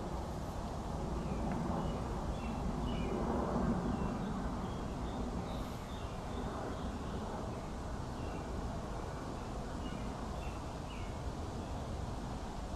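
Steady low background noise with faint, scattered chirps of small birds.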